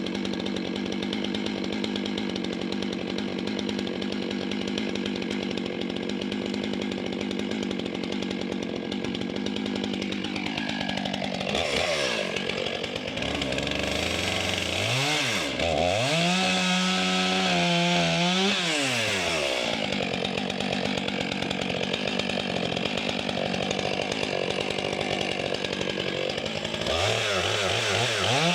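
Large Stihl two-stroke chainsaw bucking conifer logs into rounds. For about ten seconds it holds a steady pitch, then drops off throttle and revs back up several times between cuts, and does so again near the end.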